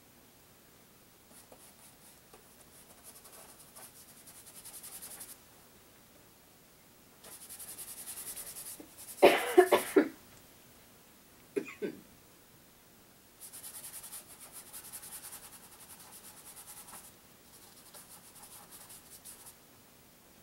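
Paintbrush scrubbing paint onto the portrait in several long, scratchy strokes. A loud cough comes about halfway through, and a shorter one a moment later.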